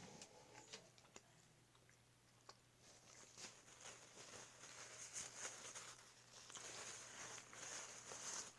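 Faint close-up chewing of a chili-and-ketchup sausage dog: soft, wet mouth clicks, sparse at first and becoming denser and more continuous about three seconds in.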